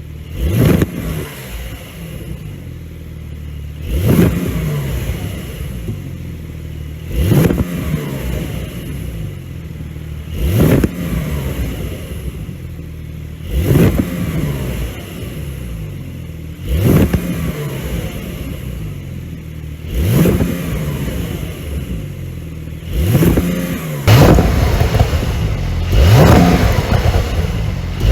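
Porsche 911 992 Carrera's twin-turbo flat-six revved in short blips about every three seconds, each falling back quickly with crackle on the overrun through a tuned exhaust with its flaps held open. Near the end come two longer, louder revs.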